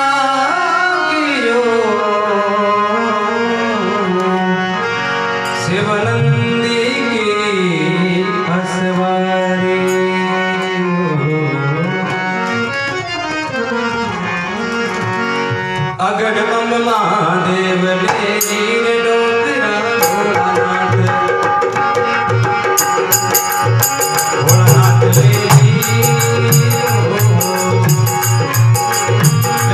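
Rajasthani folk music: a man sings long, gliding melodic lines over a reed-organ drone and hand drums. About two-thirds of the way through, a bright jingling percussion sets in with a fast, even beat, and the drumming grows louder near the end.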